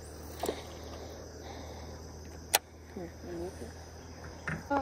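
Steady chirring of crickets and other insects over a still pond, with one sharp click about halfway through.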